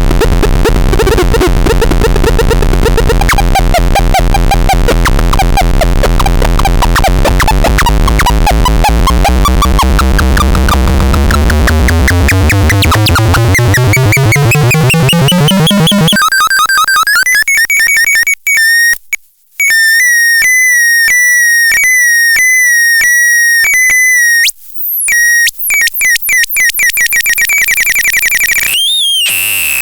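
Harsh electronic synthesizer noise: dense buzzing layers whose pitch sweeps steadily upward, switching about halfway through to thin, high bleeping tones that step up and down, with two brief cut-outs.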